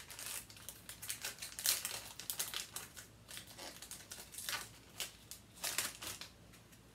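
Trading-card pack wrapper crinkling as it is opened by hand, in quick irregular crackles that thin out over the last few seconds.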